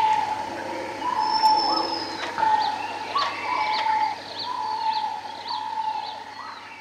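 Several birds calling at once. One mid-pitched note repeats steadily, a little faster than once a second, over sharp high chirps and one brief high whistle about a second and a half in.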